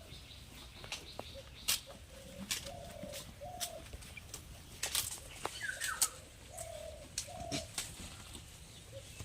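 A dove cooing in short, low two-note phrases, twice about four seconds apart, among scattered sharp clicks and taps.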